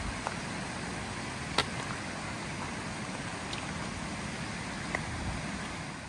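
Steady rush of wind on the microphone, with a few sharp clicks of footsteps on a stony gravel path. The loudest click comes about a second and a half in.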